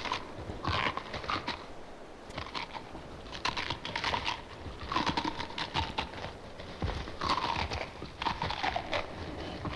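Horror sound-effects record of a giant crab monster rampaging: a run of harsh, hissing cries about once a second, each sliding down in pitch, with crunching noise between them.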